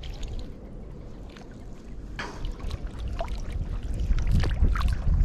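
Splashing and trickling water in a shallow stream, with wind rumbling on the microphone that grows much louder in the last second or so.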